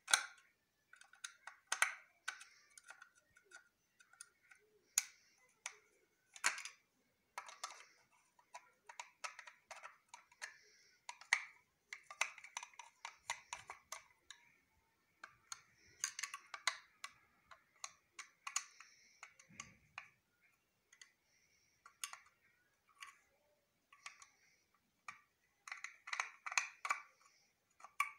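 Small, irregular clicks and taps of plastic and metal, some in quick runs, as an Epson inkjet printer's print head carriage is handled and the screws holding the head are undone with a screwdriver.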